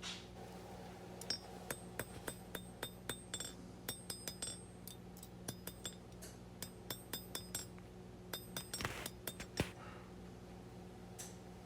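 Hand hammer striking a 1084 high-carbon steel knife blade on an anvil, in three quick runs of blows, each with a bright metallic ring, to keep the blade straight. A steady low hum runs underneath.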